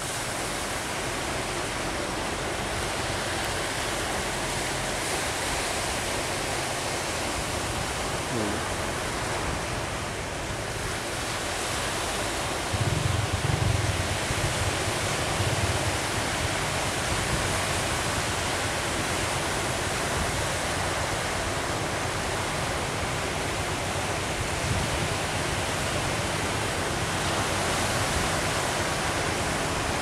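Ocean surf breaking steadily, with wind rumbling on the microphone; the low rumble grows louder for a few seconds about a third of the way in.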